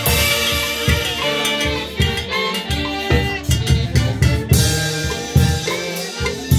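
Live band of several saxophones playing a dance tune in held, layered notes over a steady drum beat.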